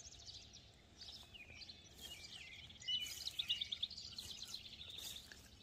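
Songbirds chirping, with a fast trill of short high notes from about three seconds in, over a faint steady outdoor hiss.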